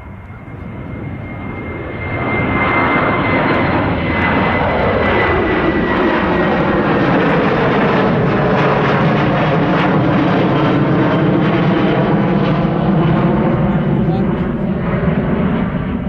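A US Navy C-40A Clipper, a Boeing 737 with two turbofan engines, passing by. The jet noise swells over the first few seconds to a loud, steady rush, with a high whine and lower engine tones gliding down in pitch as it goes past.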